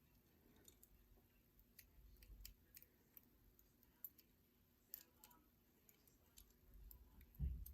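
Faint, irregular metallic clicks and light scrapes of a homemade stainless steel pick being worked inside a warded padlock, with a dull bump from handling the lock near the end.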